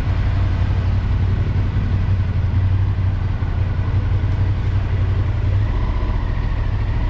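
Ducati Monster 1200S's L-twin engine running at low revs as the bike rolls slowly toward the curb, a steady low rumble that drops to a deeper note near the end.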